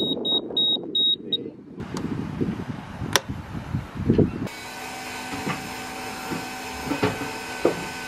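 Fuel-polishing system alarm at the helm panel beeping fast and high, about three beeps a second, then cutting off about a second and a half in as the switch is pressed; it sounds because the fuel inlet has been shut while the polishing pump runs. A few clicks and knocks follow, then from about four and a half seconds a steady electric fuel-pump hum with several steady tones.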